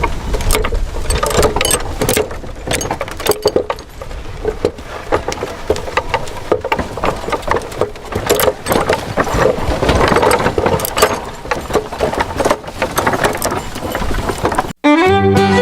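Small motor of a miniature DIY model machine running unevenly, with rattling and clicking of its parts. Music cuts in suddenly near the end.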